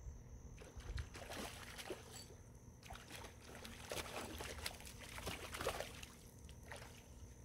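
Faint water sloshing and splashing in irregular small bursts, starting about half a second in, over a steady high insect drone and a low rumble.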